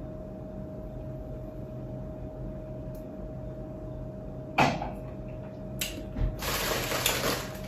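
A champagne glass is set down on a table with a single knock about four and a half seconds in, over a faint steady room hum. Near the end come a soft thump and the rustle of a plastic mailer package being handled.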